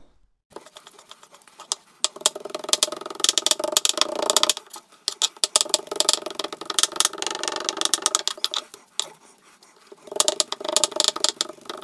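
Kitchen knife chopping and mincing raw chicken on a wooden cutting board: a fast run of quick taps with a few brief pauses.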